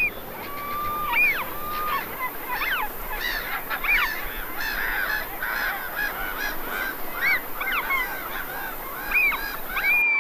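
A flock of birds calling over each other: many short cries that rise and fall in pitch, with a few longer drawn-out calls.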